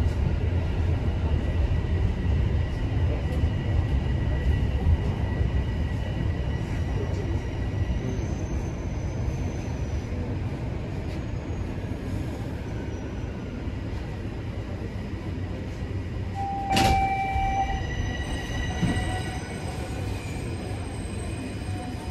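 Inside a Toronto Rocket subway car braking into a station: a low rumble that fades as the train slows to a stop, with faint thin whines above it. About 17 s in, a single sharp knock with a short beep.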